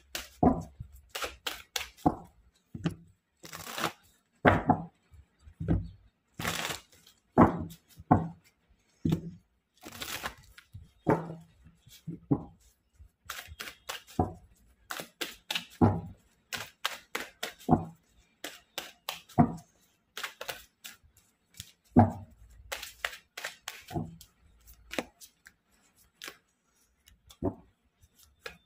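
Tarot cards being shuffled by hand: quick, irregular flicks and slaps of the cards against one another, some with a dull knock, coming in clusters with short pauses.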